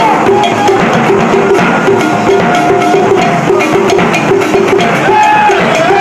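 Traditional Aguba dance music played live by a percussion ensemble: drums, including a bass drum, under a quick, even knocking pulse of about three strokes a second, with a wavering melodic line above.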